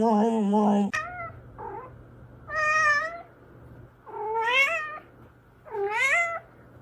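A cat meowing. A long wavering yowl breaks off about a second in, followed by a couple of short, faint meows and then three longer, louder meows about one and a half seconds apart, each rising and then falling in pitch.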